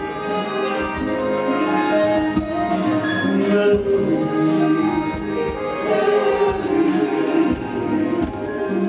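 Live band music, with singing.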